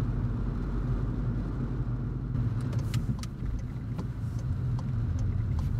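Steady low drone of a car on the move: engine and road noise, heard from inside the car.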